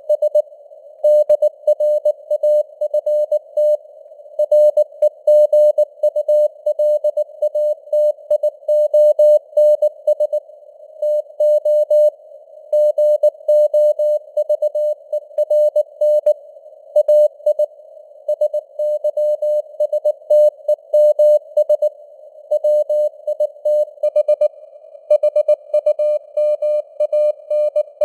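Morse code (CW) sent at 19 words per minute as a tone of about 600 Hz keyed on and off in dots and dashes, with gaps between letters and words. It sits in a narrow band of simulated radio receiver noise, and the signal strength fades up and down (QSB).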